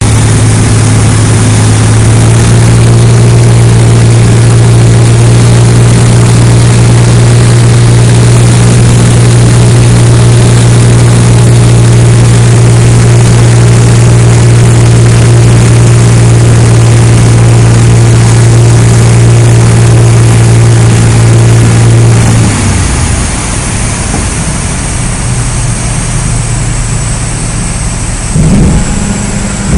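Cabin noise of a Zlin Z-43 light aircraft on approach: its piston engine and propeller run steadily at one constant pitch, then about 22 seconds in the throttle comes back and the engine note falls away to a quieter idle under rushing airflow. A brief loud rumble comes near the end.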